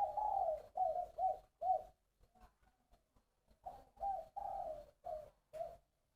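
Spotted dove cooing: two phrases of several low coos, the second beginning about three and a half seconds in. It is the song type Vietnamese fanciers call "3 ròng" (three-part).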